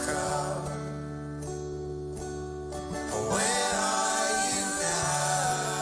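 Live acoustic folk band music: acoustic guitar, piano and double bass holding soft chords, with singing voices coming in about three seconds in and the music growing louder.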